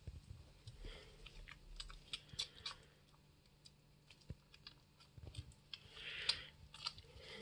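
A one-month-old bushbuck calf drinking while being hand-fed: soft, irregular wet sucking and smacking clicks.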